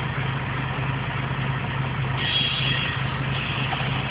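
Tractor-trailer's diesel engine idling steadily during an air-brake test, with a brief hiss of air about two seconds in.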